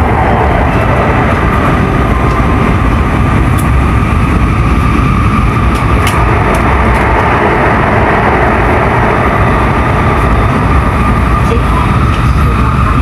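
N700S Shinkansen train running at steady speed: a continuous deep rumble with a steady high tone over it.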